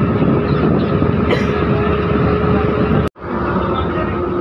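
Steady engine and road noise heard from inside a moving bus, with a constant hum. About three seconds in it drops out abruptly for a moment, then carries on with the hum a little lower.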